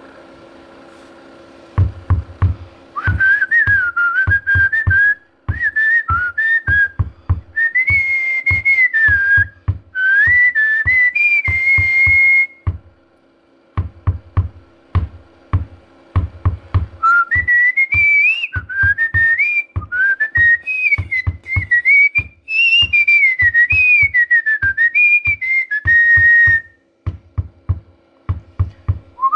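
A melody whistled over a steady drum beat: baseball cheering songs for a player, one tune ending a little before halfway and the next starting after a short break.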